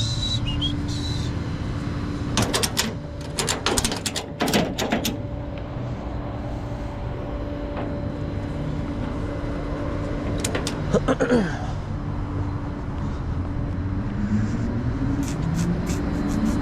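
A vehicle engine idling steadily with a low hum, with a quick series of sharp metallic clicks and knocks a few seconds in, and a short rising tone near the end.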